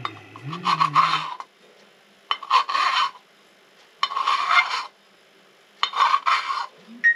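Rim of a silver cup being filed flat against a hand file: four filing strokes, each under a second, with short pauses between.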